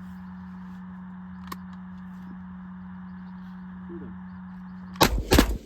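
Two shotgun shots in quick succession about five seconds in, about half a second apart, over a steady low hum.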